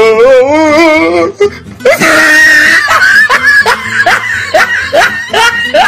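Loud laughing and shrieking voices over background music: a wavering, wailing laugh at first, a sharp shriek about two seconds in, then a string of short rising whoops of laughter.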